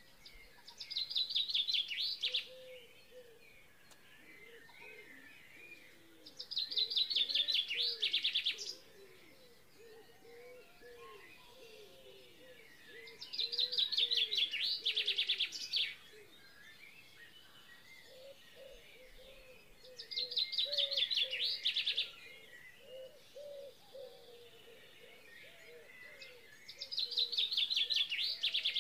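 Birdsong: one bird repeats a loud, high, rapid trilled phrase of about two seconds five times, roughly every six to seven seconds, with softer, lower chirping from other birds going on throughout.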